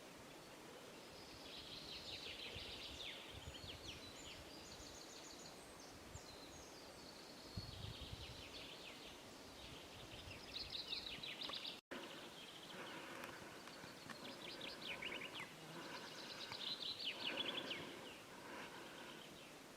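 Songbirds singing in short, rapid chirping trills that repeat every few seconds, over a faint steady background hiss. The sound drops out for an instant about twelve seconds in.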